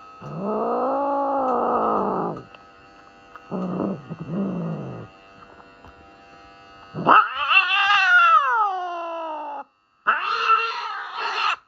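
Norwegian Forest Cat yowling in protest at being trimmed: four long, drawn-out calls that rise and fall in pitch, the highest and longest about seven seconds in.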